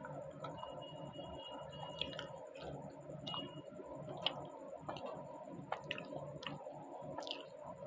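Close-up eating sounds: scattered wet clicks and smacks of a mouth chewing luchi with cholar dal, over a steady background hum.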